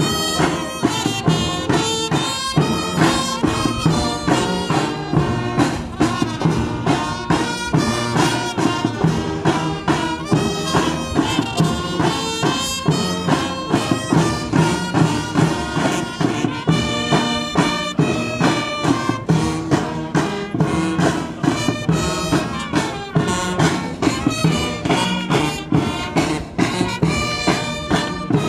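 Brass band music playing with a steady, even beat.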